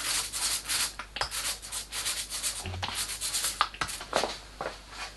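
A small roller spreading glue over a plywood panel, rolled back and forth in quick repeated strokes with a rubbing sound; the strokes thin out after about four seconds.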